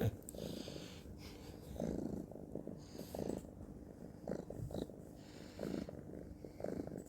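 A cat purring close up, the purr swelling and easing with each breath roughly once a second.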